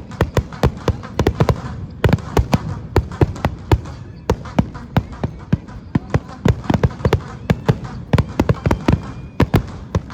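Fireworks going off in a rapid, irregular string of sharp bangs, several a second, over a steady noisy background.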